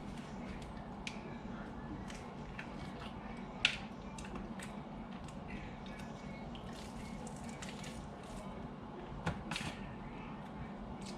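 Faint scattered clicks and handling noises over a steady low hum, with a sharp click about a third of the way in and two more near the end.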